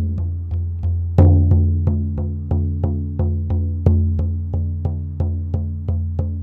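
Hand-held frame drum struck with a beater in a steady shamanic journey beat, about three strokes a second, each stroke ringing with a deep boom. One stroke about a second in is louder than the rest.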